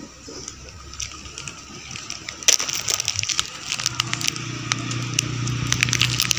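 A plastic snack packet being crinkled and handled close up, giving dense sharp crackles. About two-thirds of the way in a steady low hum comes in under it.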